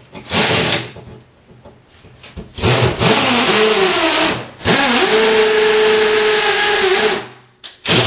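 DeWalt cordless drill-driver driving a screw through a mounting bracket to mark a screw hole in the wall. It gives a short burst, then two longer runs, each spinning up in pitch, the last a steady whine lasting a couple of seconds.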